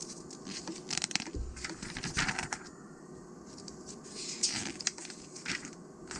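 Pages of a thick glossy magazine being turned and handled: several short papery swishes and rustles, the loudest about two seconds in and another just past four seconds.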